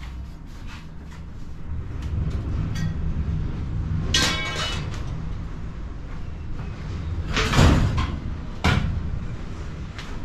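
Sheet-metal office furniture clanking as it is handled and dumped for scrap: a ringing metal clang about four seconds in, a loud crash near the eight-second mark, and a sharp knock just after it, over a steady low hum.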